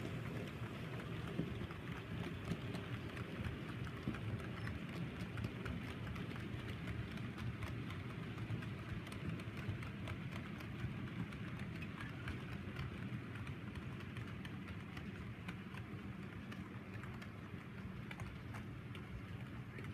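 Model diesel locomotive running on the layout's track: a steady low motor hum with fast, irregular clicking of wheels over the rails and rail joints.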